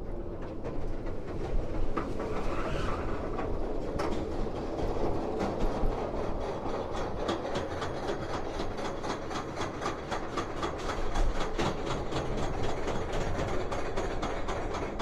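Roller coaster train running along its track: a steady rumble and rattle with a dense, rapid run of clicks that becomes thicker and more regular about four seconds in.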